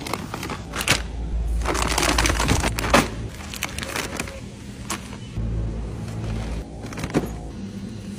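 Crinkly plastic snack bags rustling as they are grabbed from a store display, with a few sharp knocks of packages being handled.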